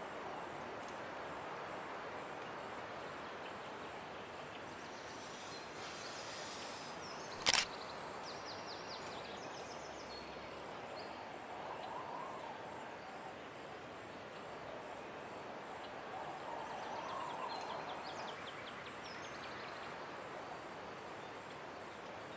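Outdoor nature ambience: a steady hiss with birds chirping now and then, and one sharp click about seven and a half seconds in.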